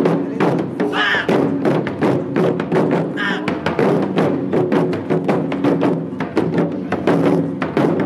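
Japanese taiko drum ensemble playing: many barrel drums and a large drum struck together in a fast, dense rhythm.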